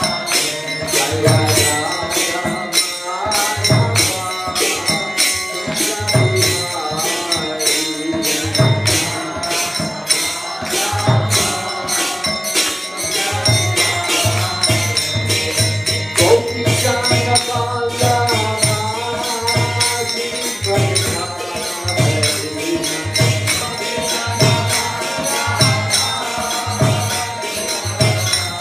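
Devotional kirtan: a man's voice singing a chant over a steady rhythm of jingling metal hand percussion and regular low drum beats.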